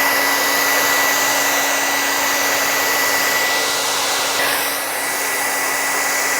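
Hair dryer running steadily: a loud, even rush of air with a steady high motor whine.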